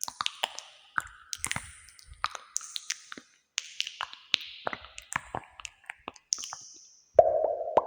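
ASMR clicks, pops and taps in quick irregular succession, each trailing a long artificial cave-like echo. About seven seconds in comes a louder, lower sound that rings out.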